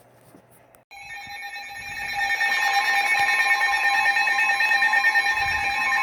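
Several NOAA weather radio receivers going off at once for a severe thunderstorm warning: a chord of steady alarm tones starts about a second in and grows louder over the next second or two, then holds.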